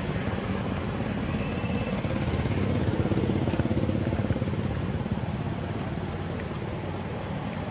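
A motor vehicle's engine running, a steady low drone that grows a little louder for a couple of seconds in the middle.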